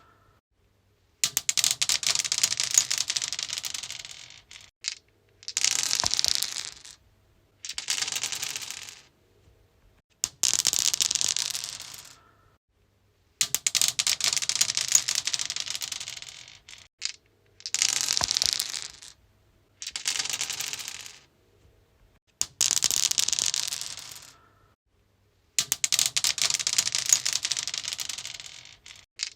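Dice rolling and clattering across a stone surface, roughly ten separate rolls. Each is a second or two of rapid clicks that fade as the dice settle, with short silences between.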